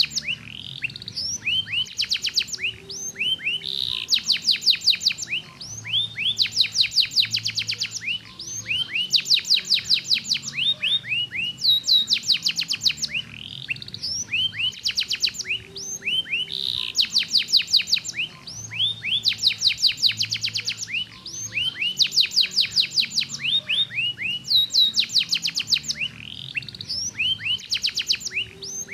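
Domestic canary singing: fast rolling trills of rapidly repeated high notes, one phrase after another with short breaks between them.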